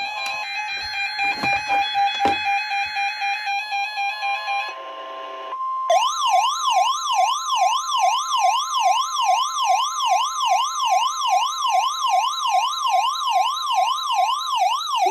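NOAA Weather Radio warning alarm sounding during its weekly test. A few seconds of steady, chopped electronic tones lead into a brief steady tone near 1 kHz. About six seconds in this gives way to a warbling siren tone that rises and falls about twice a second, signalling that the warning alarm has been activated.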